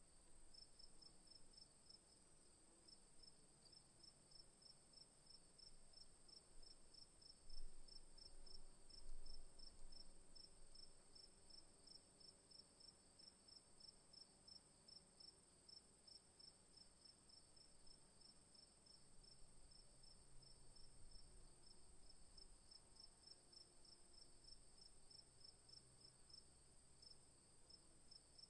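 Crickets chirping faintly at night: a steady high-pitched trill with a rapid, regular pulsing chirp beneath it. Two brief low bumps come about a third of the way in.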